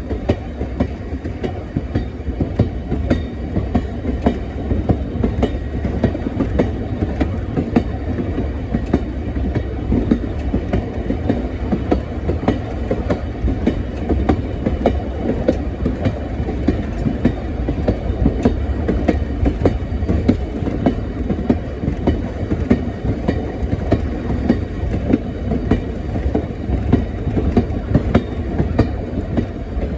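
Train rolling along the track: a steady rumble with wheels clicking over the rails.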